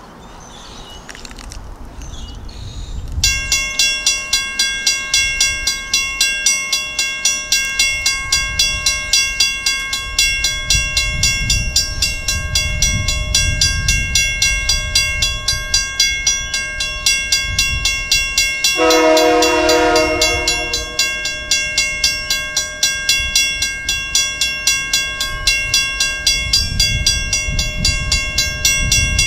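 A mechanical bell starts ringing about three seconds in, with rapid, evenly spaced strikes of about three a second that carry on steadily. Past the middle, a diesel locomotive's horn sounds one blast of about two seconds over the bell.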